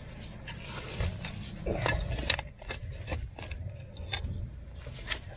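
Steel shovel blade digging into soil and roots: irregular scraping and chopping strokes, the loudest a little after two seconds in.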